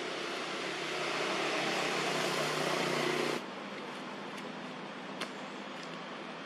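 Steady outdoor background noise with no clear single source. It drops abruptly to a quieter level about three and a half seconds in, where the footage cuts, and a couple of faint clicks follow.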